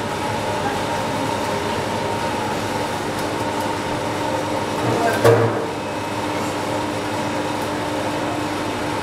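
Steady background hum with a few constant tones, the room noise of a shop's machinery, and a brief louder rumble about five seconds in.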